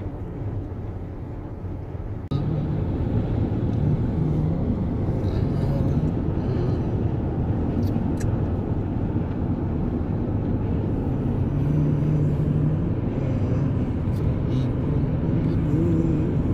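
Steady road and engine noise of a car cruising at highway speed, heard from inside the cabin; the rumble steps up in loudness about two seconds in.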